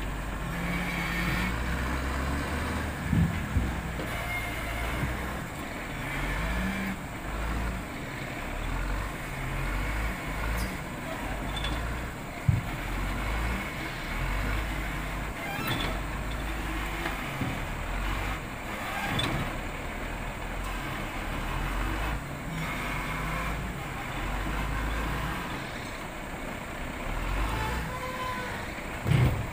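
CAT wheel loader's diesel engine running and revving under load as its log grapple works logs off a truck. A few sharp knocks stand out, about three seconds in, near the middle and at the very end.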